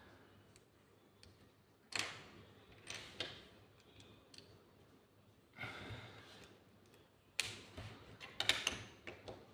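LEGO minifigure pieces being handled and snapped together: scattered small plastic clicks, a few of them close together near the end.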